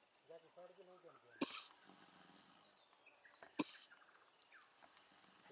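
Steady, high-pitched drone of insects in the forest, with two sharp clicks, one about a second and a half in and another about three and a half seconds in.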